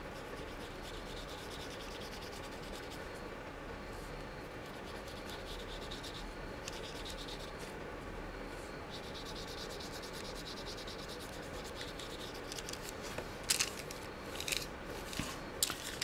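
Watercolour brush bristles rubbing and scratching softly across printed book paper as paint is brushed on. A few sharp light clicks come near the end.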